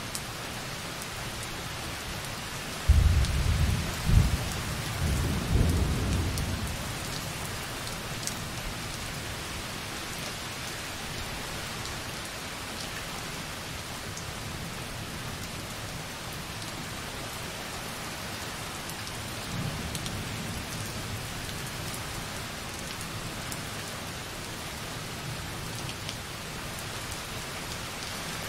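Light, steady rain pattering softly on a window, with distant thunder. A rumble of thunder starts suddenly about three seconds in, rolls on in several swells for about four seconds and fades, and a fainter rumble comes around twenty seconds in.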